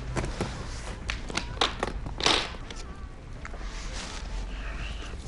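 Briefcase latches clicking open in a few sharp clicks, then a louder swish as the lid lifts. A soft rustle of banknotes being handled follows.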